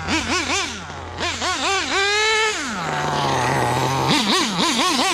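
Dynamite .28 big-block nitro engine in an RC rally car, revving in quick throttle blips, pitch rising and falling about three times a second. It is held high briefly about two seconds in, drops back to idle, then blips again from about four seconds in.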